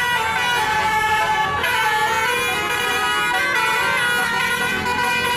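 Bus 'telolet' horn: a set of tuned air horns sounding several notes at once in a continuous tune, the notes stepping to new pitches every second or so.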